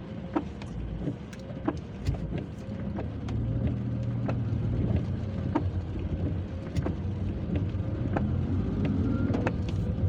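Inside a car moving slowly in traffic in heavy rain: the engine and road noise make a steady low rumble that swells a little a few seconds in. Sharp ticks come about once a second throughout.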